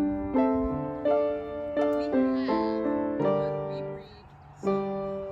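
Background music: a gentle keyboard melody of sustained single notes, one after another, with a brief pause about four seconds in.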